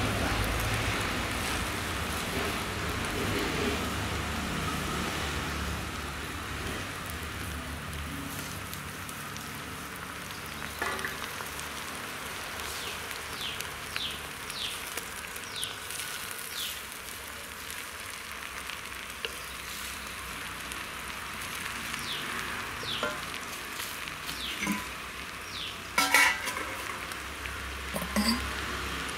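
Moringa leaves sizzling in hot oil in an aluminium pot and being stirred with a wooden spatula. The sizzle is loudest at the start and settles quieter after several seconds. A few sharp clinks come near the end, the loudest about three seconds before the end.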